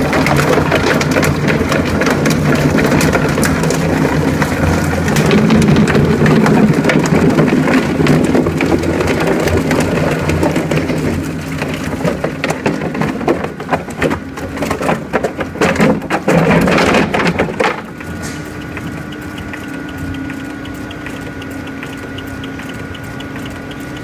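Single-shaft plastic lump shredder grinding a large plastic lump: loud, dense grinding over a low drive hum, turning into irregular crunches and knocks as the rotor teeth bite chunks off. About three quarters of the way in it drops to a quieter, steady hum of the rotor turning under lighter load.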